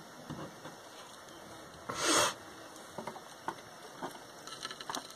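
A short, sharp nasal sniff about two seconds in, over the faint steady hiss of a handheld gas torch flame heating a copper-to-brass joint for sweat-soldering, with a few light ticks.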